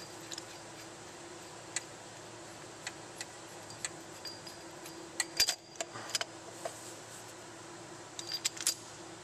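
Irregular light metallic clinks and jingles of hand tools and bolts being handled against the engine's timing belt cover, with a small cluster about five seconds in and another near the end. A faint steady hum runs underneath.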